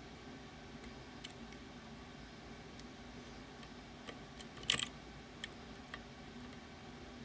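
Lock-picking tools working inside a Ruko Garant 10 lift-and-rotate sidebar lock: faint, scattered small clicks, with one louder, brief metallic rattle a little past the middle.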